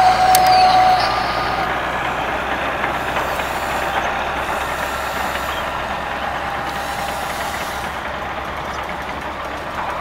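Battery-powered remote-control toy excavator running its small electric motors and plastic gears: a steady whirring buzz, with a higher whine for about the first second.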